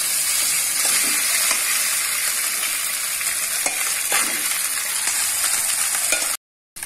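Hot ghee sizzling steadily in a stainless steel pan as cooked, mashed rice is tipped in, with a few light taps of a spoon against the steel vessel. The sound drops out for a moment near the end.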